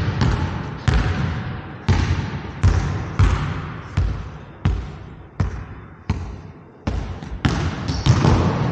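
A basketball being dribbled on a hardwood gym floor in a steady rhythm, about three bounces every two seconds, each bounce echoing in the large hall.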